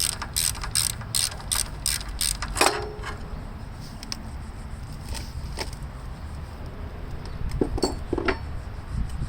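Socket ratchet clicking in steady strokes, about two and a half clicks a second, as a 9/16 bolt on the starter mount is backed out. It stops about three seconds in, followed by a few scattered clinks of metal.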